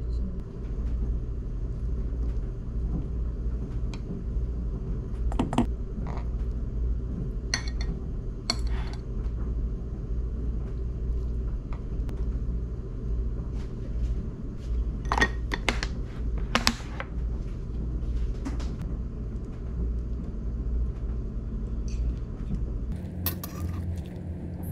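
Metal tongs and dishes clinking a few times against a stainless steel bowl and a glass food container, with a cluster of clinks about two-thirds of the way through, over a steady low hum.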